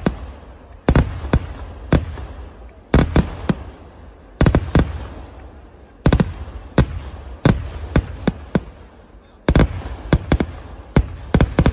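Fireworks going off in a display: loud, sharp bangs in irregular volleys every second or two. Each volley is followed by a fading rumble and crackle.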